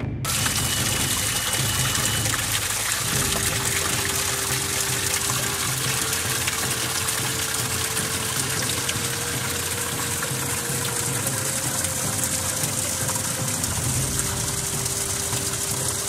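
Water rushing steadily, a dense even hiss that starts abruptly as the music cuts off.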